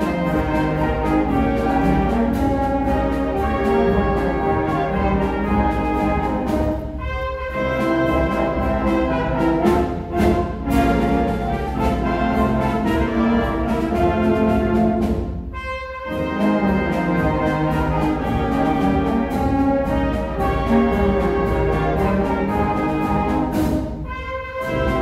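A school concert band playing: woodwinds and brass, including French horns, saxophones and tubas, in full chords, with drum strokes through it. The band stops for short breaks between phrases several times.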